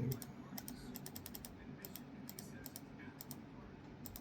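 Light, irregular tapping clicks of fingers on a handheld touchscreen device, in small clusters of a few quick taps, over a faint low hum.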